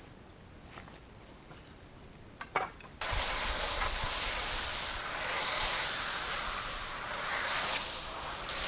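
Norwood LM29 portable bandsaw mill cutting a pine log: a steady, hissing run of noise that starts abruptly about three seconds in, after a few faint clicks and a short knock.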